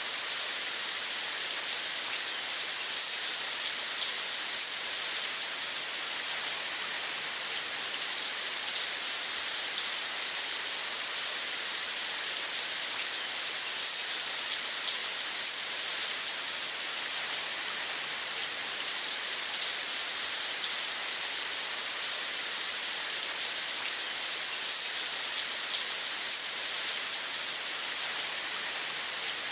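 Steady rain falling, an even hiss of fine drops with no change in strength.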